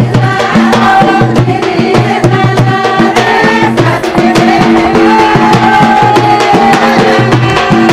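Banjara Holi folk song (lengi geet): a fast, steady drum beat with singing, including a long held note in the middle.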